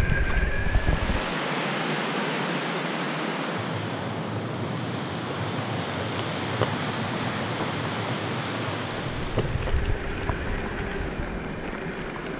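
Steady rushing noise of an Evolve GTX AT electric longboard's all-terrain tyres rolling down a gravel track, mixed with wind on the microphone, with a few short clicks from loose gravel.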